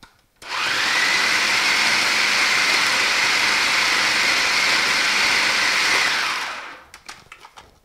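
Electric food processor running, chopping raw meat into a coarse grind for chorizo: a steady motor whine with a high tone that starts suddenly about half a second in and winds down near the end when it is switched off.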